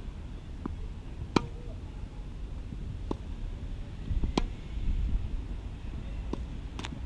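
Tennis ball being struck by rackets and bouncing on the court in a rally: about six sharp pocks a second or so apart, the loudest about a second in, over a steady low rumble.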